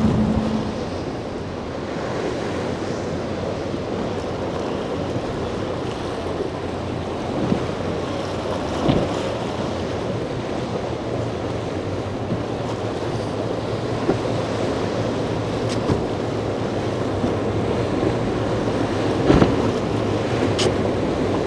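Surf and choppy water with wind buffeting the microphone, under the low drone of boat engines running through the waves. A few short sharp slaps break through, the loudest near the end.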